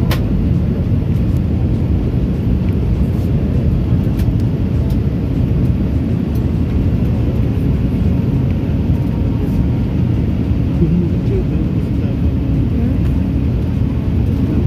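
Jet airliner cabin noise in flight: the steady, low rumble of the engines and rushing air, heard from a window seat.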